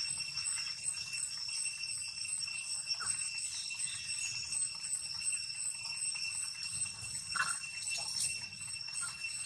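Steady, high-pitched insect drone, one unbroken whine with higher overtones. Two short, faint squeaky chirps come through it, about three seconds in and again about seven seconds in.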